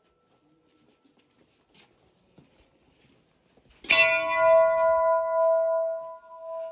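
A hanging brass temple bell struck once about four seconds in, ringing on with a clear, steady chord of tones that slowly fades.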